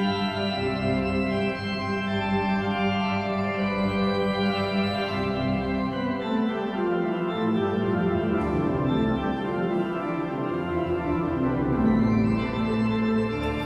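Church pipe organ playing sustained chords in a classical organ piece, with a low pedal bass that drops away for a few seconds in the middle and comes back.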